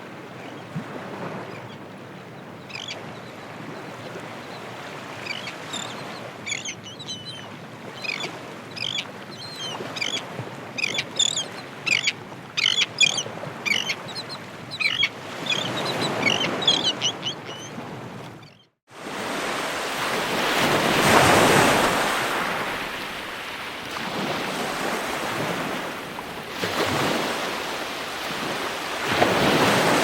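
Ocean surf washing, with birds calling in quick succession over it. After a sudden brief dropout about two-thirds of the way in, louder ocean waves roll in, swelling twice.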